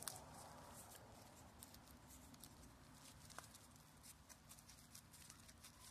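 Near silence: a faint outdoor hiss with scattered light ticks and rustles, a slightly sharper click near the start and another about three and a half seconds in.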